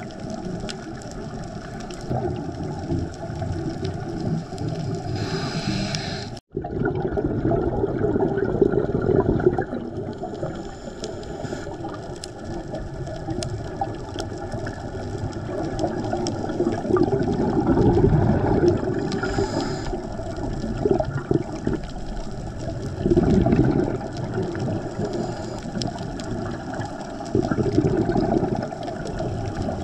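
Underwater rush and gurgle of scuba divers' exhaled regulator bubbles, swelling every few seconds with the breaths. It cuts out briefly about six seconds in.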